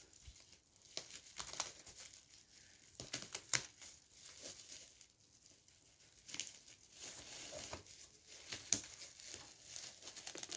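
Hands unwrapping a parcel: irregular crinkling, rustling and tearing of packaging, with sharp crackles here and there.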